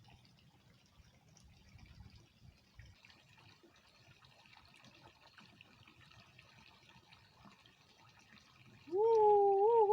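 Faint trickling of water in a small ditch. About nine seconds in, a loud pitched call rises and then holds for about a second.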